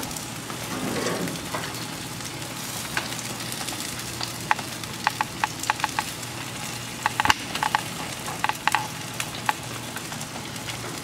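Chicken leg quarters sizzling on a barbecue grill, a steady hiss broken by sharp pops and crackles as fat drips off the meat into the heat, most of them coming in quick runs between about four and nine seconds in.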